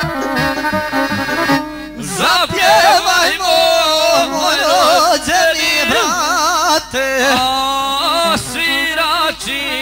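Bosnian izvorna folk song: an instrumental passage, then from about two seconds in a high melody with wide vibrato over the accompaniment.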